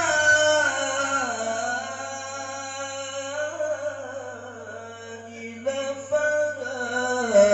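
A man reciting the Quran in a slow, melodic chant into a microphone, holding long drawn-out notes that slide up and down. He breaks off and starts a new phrase about five and a half seconds in. A steady low hum runs underneath.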